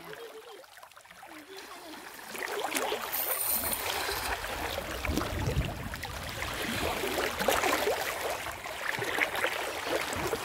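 Stream water flowing and trickling, getting louder about two seconds in.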